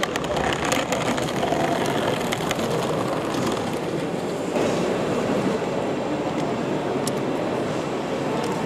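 Model trains running on an exhibition layout: a steady running rumble with scattered light clicks, over the general background noise of the hall.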